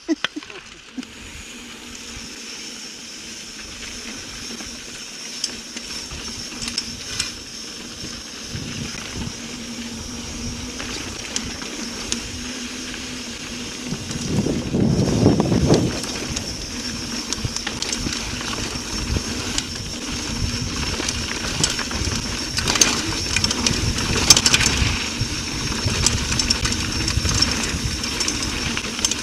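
Mountain bike rolling down a dirt trail: wind rumble and tyre noise that grow louder as the bike speeds up, with scattered clicks and rattles from the bike over bumps. About halfway through there is a louder brushing swell as the bike passes close by trailside brush.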